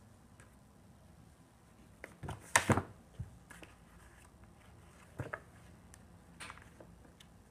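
A cat pawing at a plastic track-ball scratcher toy: a few short knocks and scrapes, the loudest cluster a little over two seconds in, with smaller ones later.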